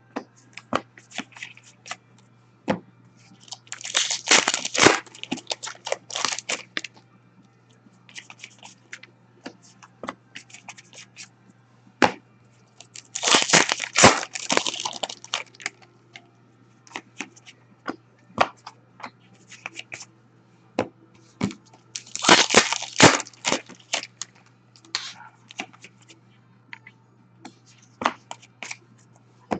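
Hockey card pack wrappers being torn open and handled, in three noisy bursts among scattered sharp clicks of cards being sorted, over a steady low hum.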